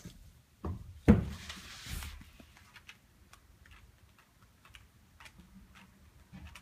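Cats swatting at a toy: one loud knock about a second in, followed by about a second of rustling, then scattered light clicks and taps.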